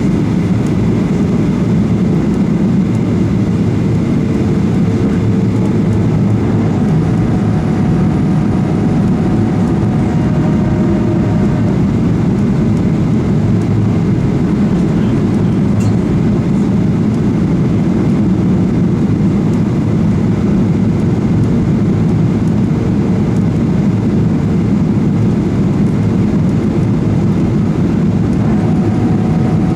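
Boeing 737-800 on final approach: a steady drone from its CFM56 turbofan engines and rushing airflow, with a few faint steady whines that come and go.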